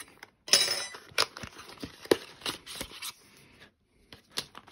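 A small white cardboard accessory box being pulled open by hand, with a rustling scrape of card about half a second in, then scattered sharp clicks and taps as the flaps and insert come apart.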